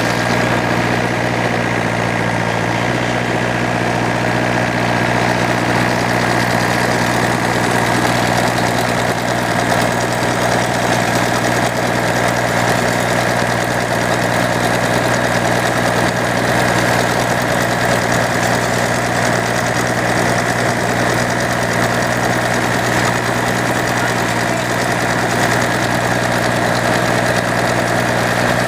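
An engine running steadily at a constant speed, with an even hum that does not change.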